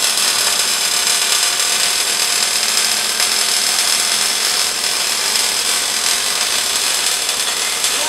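Longitudinal seam welding machine for water heater tanks at work: a steady, even hiss with a faint low hum under it.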